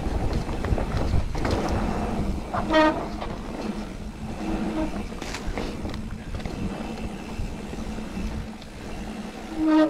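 Mountain bike riding over a dry dirt woodland trail: steady tyre rumble and rattle, with wind buffeting the microphone. Two short, loud honking tones cut through, one about three seconds in and a louder one just before the end.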